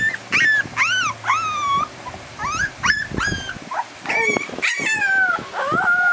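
Three-week-old Siberian Husky puppies whimpering and yipping in a quick run of short, high cries. Near the end come a few longer cries that fall in pitch, howl-like.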